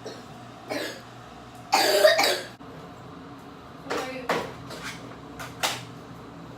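A young child with a cold coughing several times in short fits, the loudest a double cough about two seconds in.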